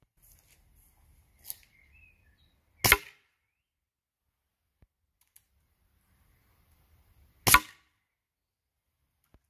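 Home-cast rubber slugs from a CO2-powered Umarex T4E HDS 68 shotgun striking a paper target on a board: a faint tap about a second and a half in, then two sharp single hits, one about three seconds in and one near the end.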